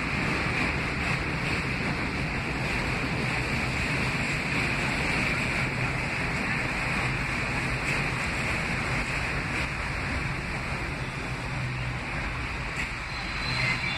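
Steady rush of wind on the microphone over the rumble of R42 New York subway cars rolling along the far track of an elevated station. Thin squealing tones come in near the end.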